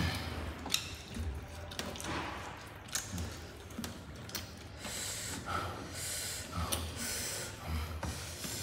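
People eating fried chicken and rice with their hands, heard up close: wet chewing and lip-smacking, scattered small clicks and soft thumps, and short noisy breaths.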